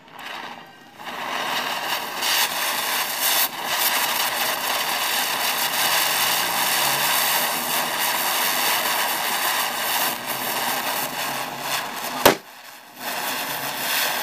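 A Diwali firecracker spraying a shower of sparks with a loud, steady hiss and a few crackles for about eleven seconds, ending in one sharp bang; a hiss starts up again shortly after.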